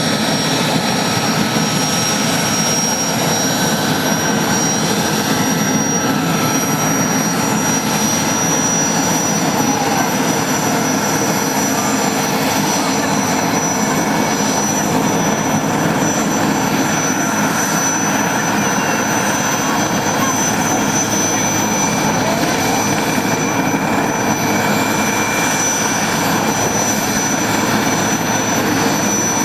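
IAR 330 Puma helicopter's twin Turbomeca Turmo turboshaft engines running during start-up: a loud, steady turbine rush with a high-pitched whine that creeps slightly upward.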